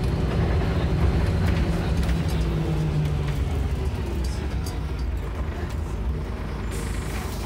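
Volvo B10BLE bus's rear-mounted six-cylinder diesel running under way, heard from inside the passenger saloon as a steady low drone. Its engine note holds for about three seconds, then fades as the bus eases off, and a short hiss comes near the end.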